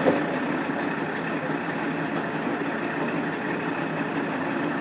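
Steady running noise heard from on board a KiHa 47 diesel railcar: its original DMF15HSA diesel engine and the wheels on the rails, with a brief knock at the very start.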